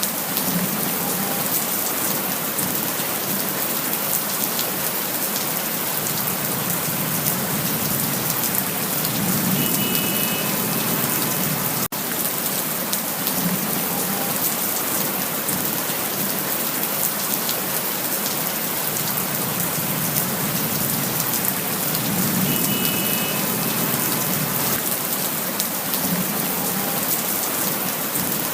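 Steady rain falling, a dense even hiss with single drops ticking close by. The sound cuts out for an instant a little before halfway.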